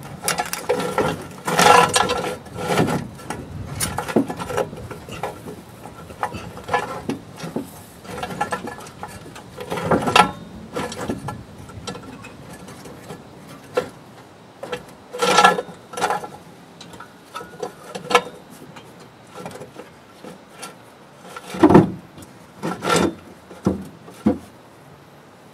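Irregular metal clunks, knocks and rubbing scrapes as a car's exhaust pipe is handled and pushed onto its rubber rear hangers, in scattered groups with short pauses between.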